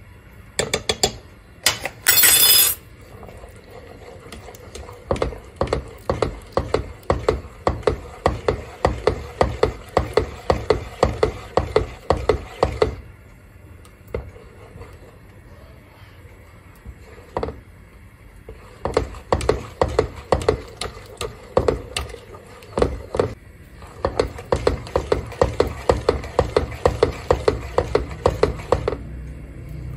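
A coated wire whisk beating a thin cream mixture in a nonstick pot, its wires knocking against the pot about three times a second in two long spells with a pause between. A brief loud clatter about two seconds in.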